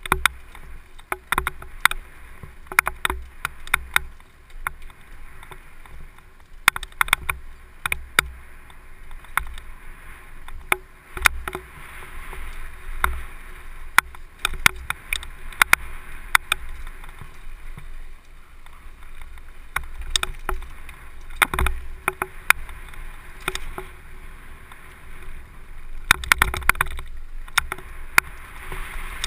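Downhill mountain bike rattling over a stony dirt trail at speed: a constant clatter of sharp clicks and knocks from the bike and tyres, with busy stretches of rough ground a few seconds in and again near the end. Wind rumbles on the camera microphone underneath.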